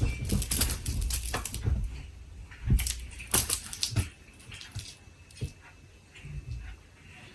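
Irregular rustles, scratches and light knocks of movement on bedding, busiest in the first two seconds and again three to four seconds in, then quieter.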